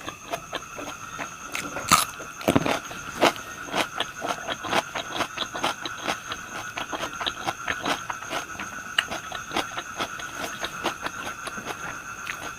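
Close-up chewing and crunching of fried pork intestine and liver, a quick irregular run of crisp bites and chews with a few sharper crunches about two to three seconds in. A faint steady high-pitched tone runs underneath.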